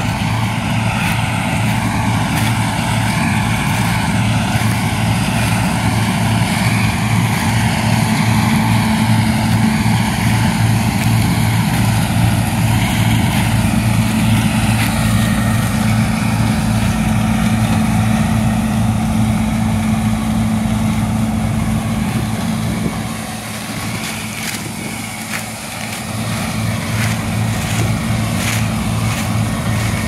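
John Deere 6620 combine harvesting corn: a steady engine drone with the whine of the threshing machinery over it. It drops in loudness for a few seconds about three-quarters of the way through.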